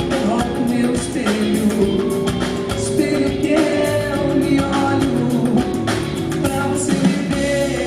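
Live concert music: a band playing, with a lead singer's voice over it and regular drum hits.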